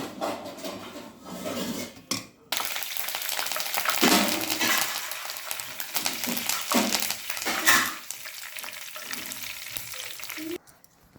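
Meal maker (soya chunks) frying in hot oil in a pan: a steady sizzle with stirring. It breaks off briefly about two seconds in, resumes, and cuts off suddenly near the end.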